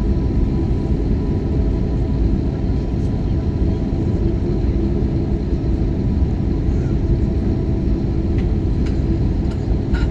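Steady low rumble of an Airbus A321neo heard from inside the passenger cabin, with faint steady tones over it.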